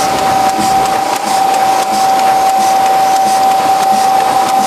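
Tymi Ustar-102 UV spot coating machine running: a steady high whine over a constant hiss, with a faint regular beat about one and a half times a second.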